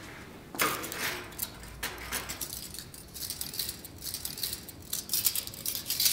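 A bunch of keys jingling as it is handled: irregular light clinks and rustles, starting about half a second in.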